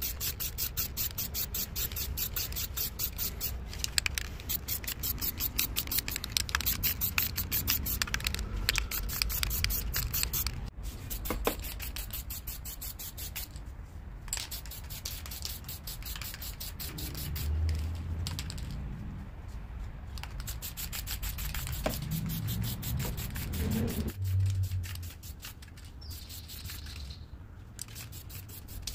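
Aerosol spray paint can being shaken and sprayed: a fast rhythmic rattle for the first ten seconds or so and again near the end, with the hiss of the spray.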